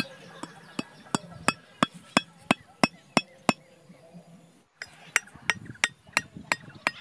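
A bamboo stake being hammered into grassy ground: sharp knocks about three a second, a pause of over a second, then the knocking starts again.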